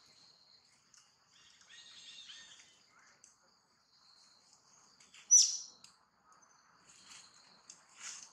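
Forest ambience: a steady high insect drone with scattered short, high chirps and calls over it. The loudest is one sharp chirp about five seconds in.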